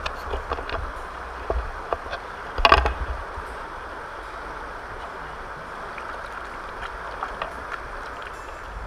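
River water rushing steadily past the stones at the bank, with low wind rumble on the microphone. A few sharp clicks and a brief louder burst of noise come in the first three seconds, as hands work at the water's edge.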